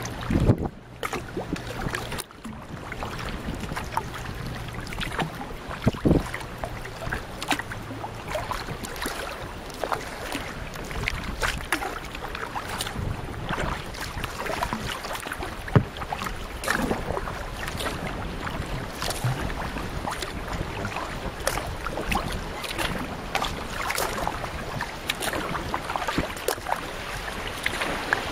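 Water splashing and sloshing around a canoe under way at sea, with wind buffeting the microphone.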